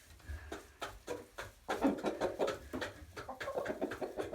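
Chickens clucking quietly, with many light taps and scratches of birds pecking and scratching at scattered grain; the clucking picks up from about two seconds in.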